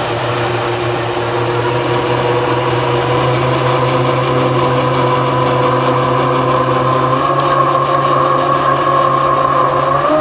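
Small radio-controlled boat's electric motor running steadily as it tows a line across the water: a continuous whine whose pitch creeps slowly higher and steps up near the end.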